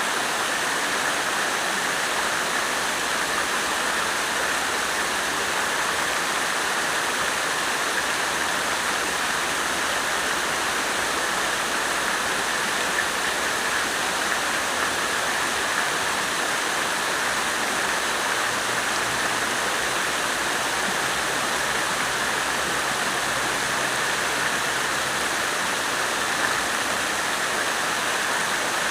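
Water fountain splashing steadily, an even rush of falling water.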